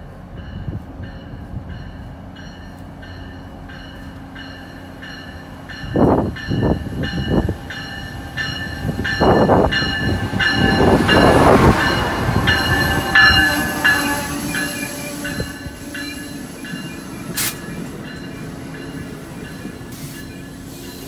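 Amtrak ACS-64 electric locomotive and its passenger cars running into the station along the platform, with a steady rhythmic ringing of about two to three strikes a second. The rush of the train grows loud as the locomotive goes by, about ten seconds in, then eases as the cars roll past.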